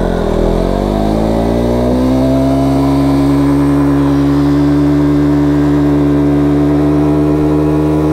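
Motorcycle engine running while riding: the revs dip briefly, climb over about two seconds, then hold steady.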